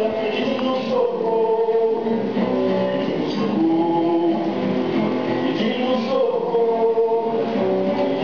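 Music: a song with male and group singing over guitar accompaniment.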